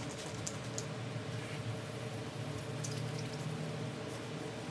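Hand wet-sanding a plastic headlight lens with a sanding pad, a steady wet scrubbing, with a few short squirts from a trigger spray bottle wetting the lens near the start.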